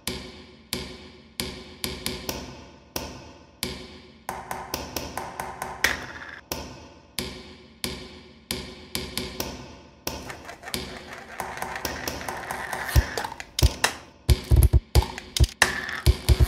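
Rhythmic beat built from mayonnaise-jar kitchen sounds: a spoon tapping and scraping in a plate of mayonnaise and clicks of the jar and its lid, cut into a repeating pattern of two to three sharp taps a second. Deep thumps join the pattern in the last few seconds.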